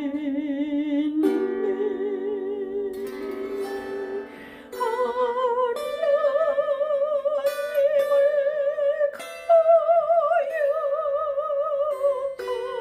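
Slow gospel hymn: a singer holding long notes with wide vibrato over plucked lyre mini-harp strings.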